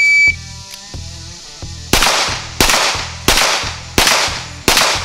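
Shot-timer start beep, then about two seconds in a pistol fires five shots in quick succession, about 0.7 s apart, in a bill drill. Background music with a steady beat runs underneath.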